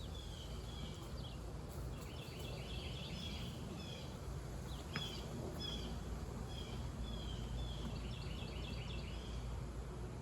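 Outdoor ambience: small birds chirping and trilling again and again over a low, even background rumble, with one faint click about five seconds in.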